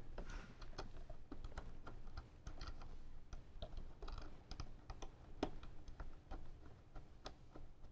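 Faint, irregular small metal clicks and taps from a wrench, nut and ring terminal being handled at a car battery's positive post, with one sharper click about five and a half seconds in.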